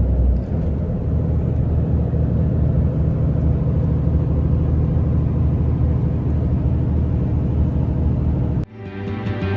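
Heavy tractor-trailer truck engine running steadily under load, pulling 23 tonnes up a steep grade. It cuts off abruptly near the end, and background music starts.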